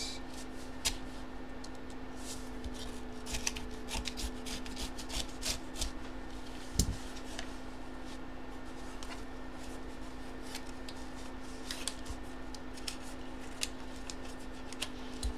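Paper and cardboard rustling, rubbing and crinkling as an envelope is opened by hand and its contents pulled out, with scattered small clicks and taps and one sharper knock about seven seconds in. A faint steady hum runs underneath.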